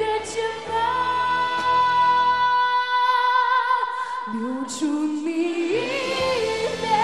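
A female singer singing a slow Mandarin ballad live over backing music. She holds one long high note through the first half, then drops to a lower phrase that climbs again.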